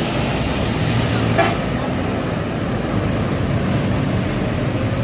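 Large bus engine running steadily amid traffic noise, with one brief sharp sound about a second and a half in.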